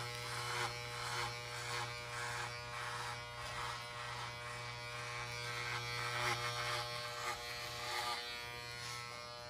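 Wahl electric shaver running with a steady buzz as it cuts the hair off a man's head.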